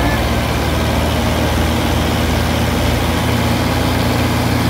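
Diesel engines of two farm tractors, a Mahindra 575 DI and a Swaraj 960, running steadily as a loud, even low drone, the two tractors chained together for a tug-of-war.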